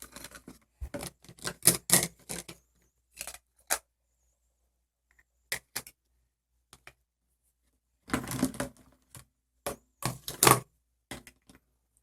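Light clicks and knocks of small plastic toy pieces being handled and set down, in irregular clusters with short pauses between them.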